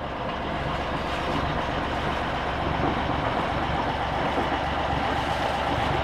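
Sailboat's engine running steadily under way: a low, even rumble with a steady hiss over it, swelling up in the first second and then holding level.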